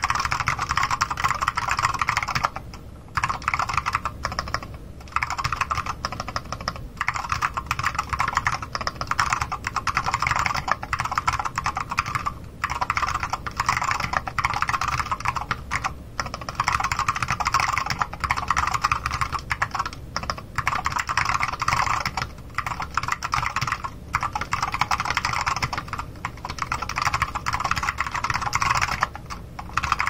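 Fast, continuous typing on a mechanical keyboard with Alps Salmon switches and Apple Extended Keyboard II keycaps: a dense stream of keystroke clacks, broken by a few brief pauses.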